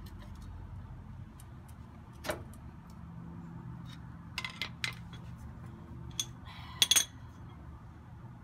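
Metal hand tools (a wrench, then a long bar) clinking and scraping against a Jeep Wrangler's lower shock mount and bolt while the old shock is worked loose: light ticks with a few sharp metallic clinks, the loudest about seven seconds in.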